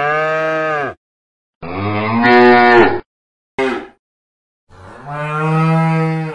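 Cow mooing: three long moos, the middle one the loudest, and a short one between the second and third, with clean silence in between.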